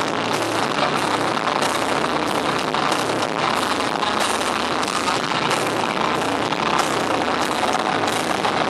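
Live rock band playing loud, with a steady beat of drum hits, recorded with poor sound so it comes through as a dense, harsh wash.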